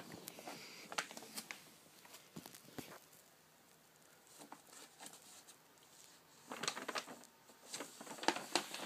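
Faint scattered rustles, crinkles and small scratches as a kitten scrabbles in the wrapper of a photocopy paper box, quieter in the middle with a flurry of rustling near the end.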